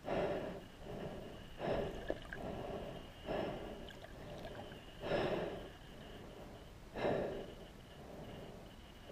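A snorkeler breathing heavily through a snorkel tube, one rhythmic breath about every two seconds.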